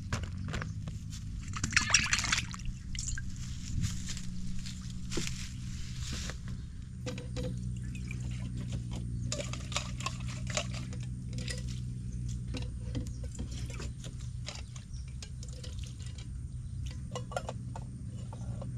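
Water splashing and pouring as vegetables are washed by hand, with irregular handling splashes and clatter, the loudest about two seconds in. A steady low hum runs underneath.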